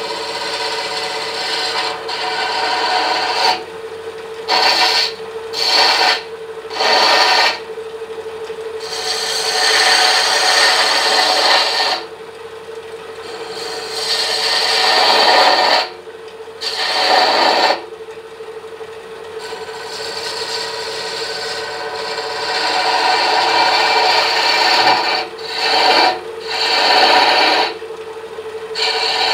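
Wood lathe running with a steady hum while a hand-held turning tool cuts the spinning wood of a small scoop's ball-shaped end. The cutting noise comes and goes in about ten passes, some short and some several seconds long.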